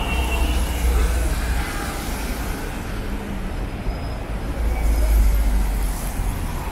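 City street traffic: a low rumble of vehicle engines, swelling in the first second and a half and again around five seconds in, over a steady wash of road noise.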